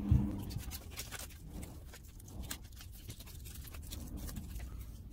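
Small children's scissors snipping through paper in quick, irregular cuts, with a low thump right at the start.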